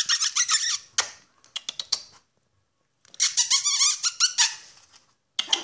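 A squeaky dog toy squeezed in quick runs of high squeaks: a run at the start, a few short squeaks from about one to two seconds in, a longer run from about three to four and a half seconds in, and another at the very end.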